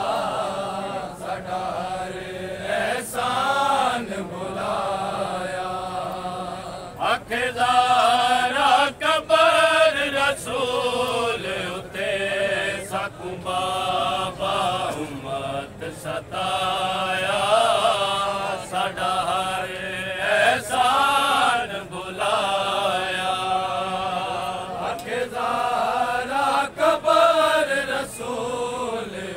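A vain, a Shia mourning lament for Hazrat Fatima, chanted by male voices in long phrases that rise and fall in pitch.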